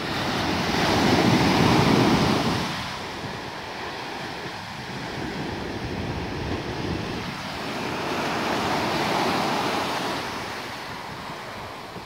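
Sea surf: waves breaking and washing in as a steady rush of noise that swells twice, loudest a second or two in and again more softly in the later part.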